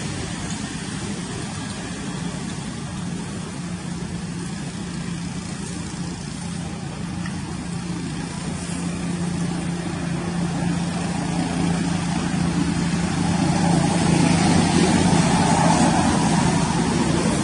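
A motor engine running steadily with a low hum, growing louder about two-thirds of the way in.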